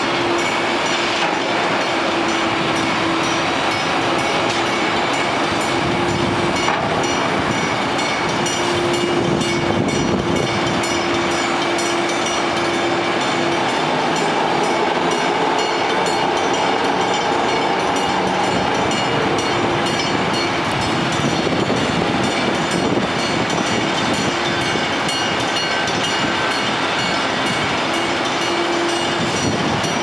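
Bascule bridge's steel leaves and lift machinery in operation: a steady loud rumble with a faint hum that comes and goes.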